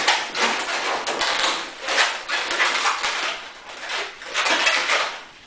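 Latex modelling balloons squeaking and rubbing against each other as they are twisted by hand, in a run of quick squeaks that dies down near the end.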